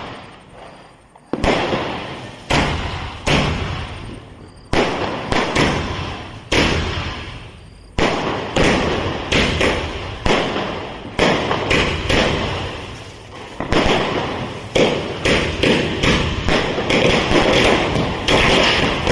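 Firecrackers going off one after another: sharp bangs, each with a fading tail, coming irregularly about once a second and bunching closer together toward the end.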